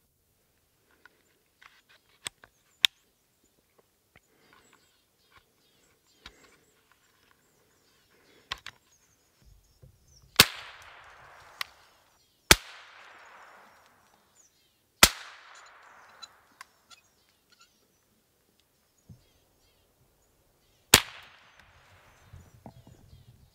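Four rifle shots, each a sharp crack with a short echoing decay. Three come a couple of seconds apart about ten seconds in, and the fourth follows some six seconds later. Faint clicks and rustles fall between them.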